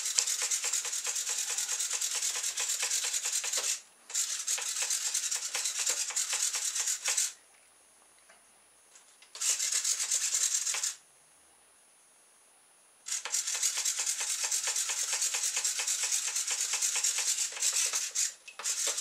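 Small radio-control servo on a pop-pop boat buzzing and rasping as it swings the rudder rapidly back and forth, in bursts of a few seconds that stop dead between them. The pop-pop engine itself is not heard in the pauses.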